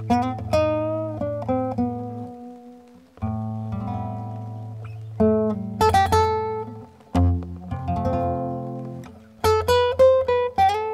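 Solo classical guitar played instrumentally: a plucked melody ringing over low bass notes, broken by quick strummed chords about five to six seconds in and again near the end.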